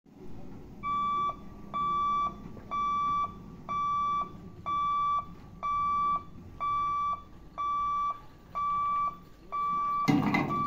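Warning beeper of a railway level-crossing boom barrier sounding while the barrier lowers: a steady electronic beep about once a second, ten beeps in all. A louder broad noise comes in just before the end.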